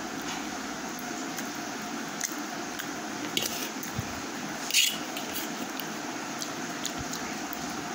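A child eating instant noodles with a fork from a steel plate: soft wet chewing and squishing, with light clicks and scrapes of the fork on the plate, one louder scrape about five seconds in, over steady room noise.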